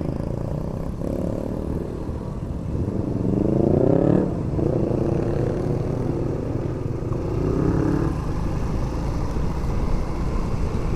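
Motorcycle engine running under way, its pitch rising as it accelerates and dropping about four seconds in, then holding steady before a smaller rise near eight seconds. A steady low rumble of road and wind noise runs underneath.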